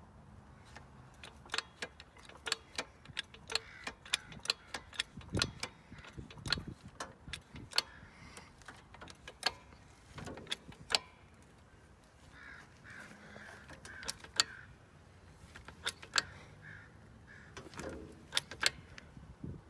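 Hydraulic floor jack being pumped by hand under load: sharp metallic clicks and clacks from the handle and pump linkage, a few a second and unevenly spaced, as it lifts the front of a truck.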